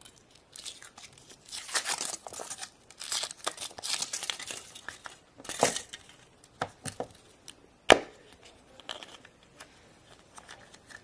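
Foil wrapper of a Kinder Surprise chocolate egg crinkling and tearing as it is peeled off. Later come a few sharp snaps as the chocolate shell is broken and the plastic toy capsule inside is handled and opened.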